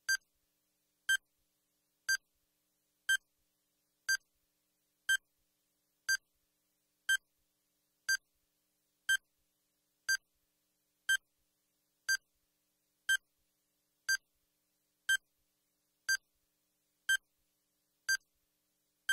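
Countdown timer sound effect: one short, sharp electronic beep every second with silence between, ticking off the seconds as the timer runs down.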